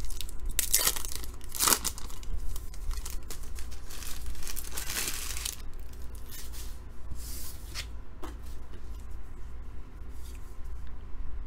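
The crimped foil wrapper of a Topps Big League baseball card pack being torn open and crinkling, with a few sharp rips in the first two seconds and a longer crinkle a little later. Near the end, a few light flicks as the stack of cards inside is handled.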